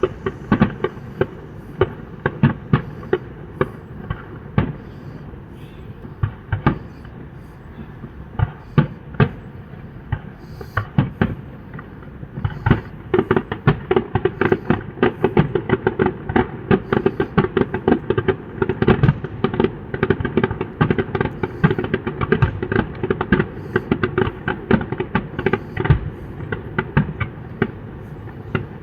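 Fireworks display: shells bursting in a string of sharp bangs, scattered at first, then coming thick and fast in a rapid crackling barrage from about halfway through.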